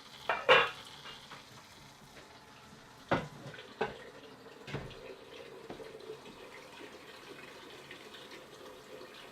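Water running steadily from a faucet fed by a newly installed shallow-well jet pump. A brief loud sound comes about half a second in, and a couple of sharp knocks about three and four seconds in.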